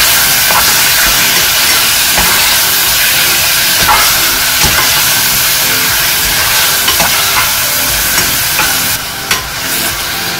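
Sliced pork sizzling as it is stir-fried in a pot over a gas flame, a steady loud hiss, with the stirring utensil clicking and scraping against the pot now and then.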